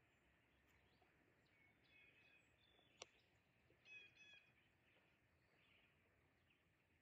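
Near silence with faint bird chirps, a few short calls about two seconds in and a brief cluster about four seconds in, and a single sharp click about three seconds in.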